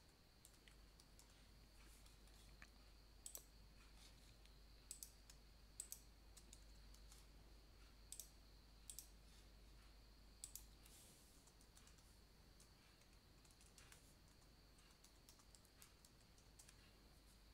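Faint computer keyboard and mouse clicks: a handful of scattered clicks, several in close pairs, between about three and eleven seconds in. Underneath is near-silent room tone with a faint steady hum.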